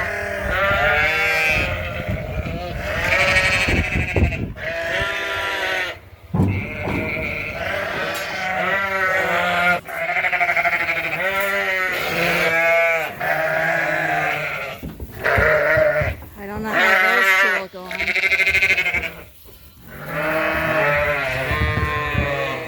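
Dorset ewes and lambs bleating continuously, with many wavering calls overlapping one after another and only brief pauses between them.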